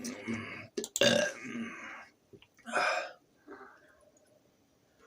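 A man burping deliberately, several burps in a row. The loudest runs for about a second, starting about a second in. A shorter one follows near three seconds, and a faint one comes just after.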